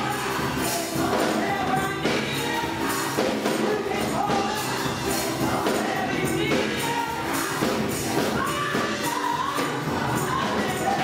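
Gospel choir singing with band accompaniment, a sung melody over a steady percussive beat.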